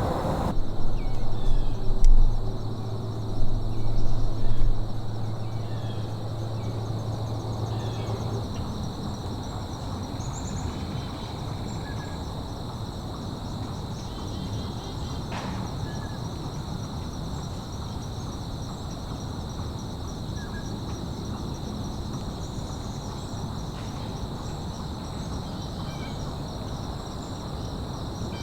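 Steady high chorus of insects trilling, with scattered short bird chirps. A low, steady engine drone from a distant vehicle or aircraft is heard during the first eight seconds or so, and it is loudest, swelling a few times, in the first five.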